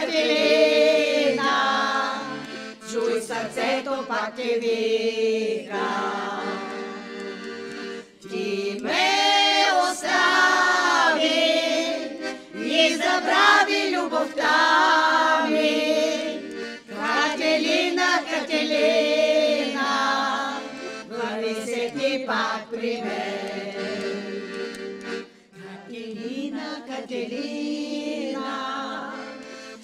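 Group of voices singing a song over accompaniment. The sung notes waver, phrase by phrase, over steady held lower tones, with short breaths between phrases.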